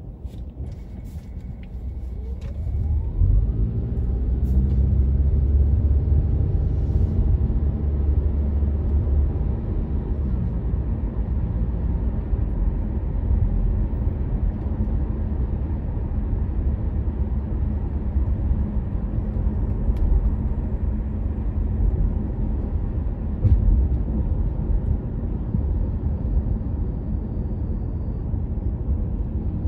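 Car driving: a steady low engine and road rumble that swells about two to three seconds in, with a rising engine note as the car picks up speed.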